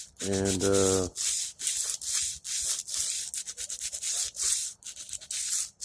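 Sandpaper rubbed by hand over the sides of a Hi-Point C9 pistol in quick, even back-and-forth strokes, stripping off the outer finish before polishing.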